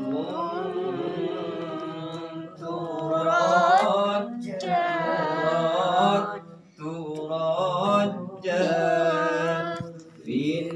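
A man chanting Arabic verses unaccompanied, in about five sung phrases with short breaks between them.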